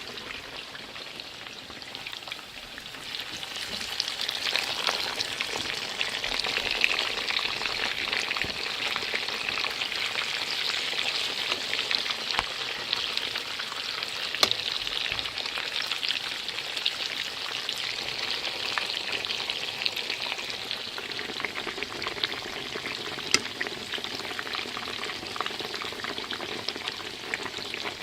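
Pork chops frying in hot fat in a pan: a steady dense sizzle with fine crackles and spitting pops, growing louder over the first few seconds and then holding steady.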